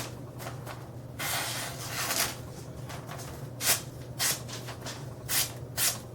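A razor-sharp, freshly stropped knife edge slicing in a series of short, crisp hissing strokes: two longer ones, then about four quick ones, over a steady low hum.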